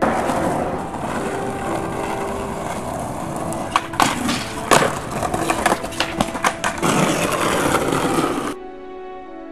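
Skateboard wheels rolling on rough concrete, with a run of sharp clacks and knocks of the board in the middle. Music plays faintly underneath, and the skating sound cuts off shortly before the end, leaving the music alone.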